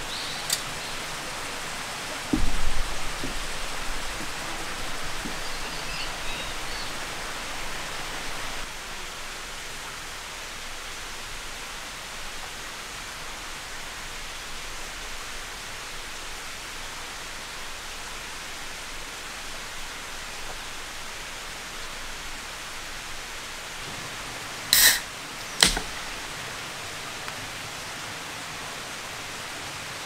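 A steady, even hiss of outdoor ambience. A low thump comes near the start, and two sharp clicks come close together about 25 seconds in.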